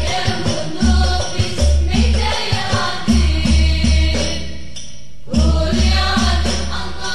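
Sholawat rebana music: rebana frame drums and tambourine jingles keep a steady beat under a melodic line. The drums drop out for about a second a little past the middle, then come back in.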